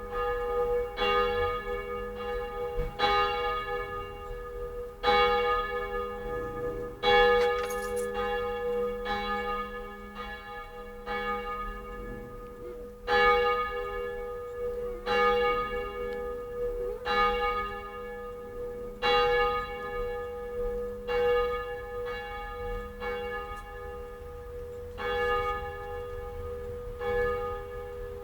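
Church bells ringing, a strike about every second, each one ringing on into the next so the tones overlap.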